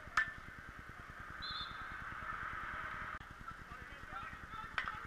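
Field hockey play on artificial turf: a sharp crack of a stick hitting the ball just after the start and another near the end, over distant calls and shouts from the players.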